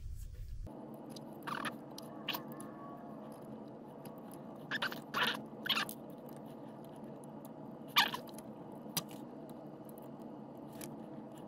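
Small clicks and scrapes of screws and fingers working against a 3D printer's plastic-and-metal printhead while the hotend's retaining bolts are being lined up, scattered and irregular with a quick cluster in the middle and the sharpest click about 8 seconds in. A steady low hum runs underneath.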